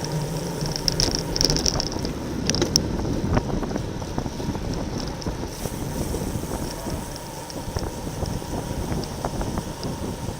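Wind rushing over the microphone of a racing bicycle moving at speed, with a few scattered clicks and rattles in the first few seconds.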